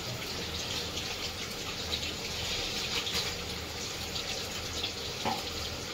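Chicken kebabs deep-frying in hot oil in a kadhai: a steady sizzle with fine crackling.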